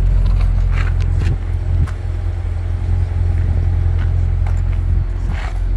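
2021 Chevrolet Corvette Stingray's 6.2-litre LT2 V8 idling with a steady low hum.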